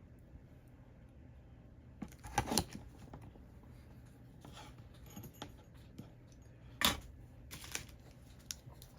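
Light metallic clicks and clinks of small soldering tools being handled at a workbench, a few separate ones, the loudest about two and a half seconds and seven seconds in, over a faint steady hum.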